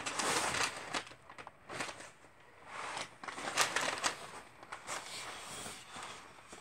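A large wood picture frame with glass being slid around and turned over on a paper-covered worktable: rustling scrapes with a few light knocks.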